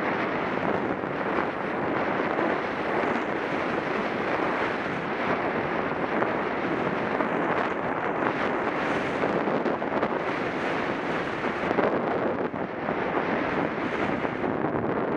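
Steady rushing wind noise on the camera microphone, mixed with the hiss of a snowboard sliding through powder snow, swelling and easing slightly as the rider turns.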